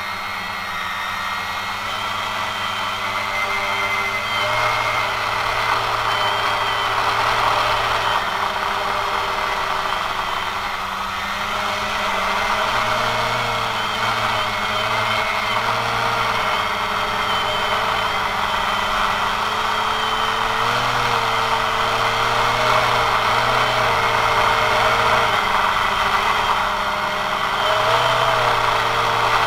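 Quanum Nova quadcopter's electric motors and propellers in flight, heard from the camera mounted on the drone: a steady hum made of several tones that shift up and down in pitch as the throttle changes, over a rush of propeller wash.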